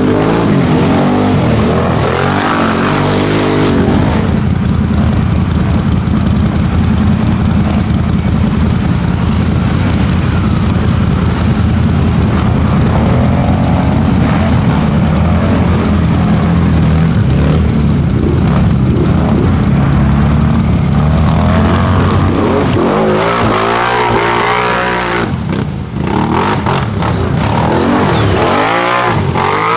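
ATV engines running hard under load in deep mud, their pitch rising and falling as the throttle is worked. The revving sweeps up and down more sharply about three-quarters of the way through and again near the end.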